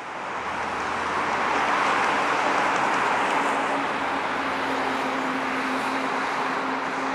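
Boeing 737 MAX 8's CFM LEAP-1B turbofan engines at landing-approach power, a steady jet rushing with a low hum, fading in and building over the first two seconds.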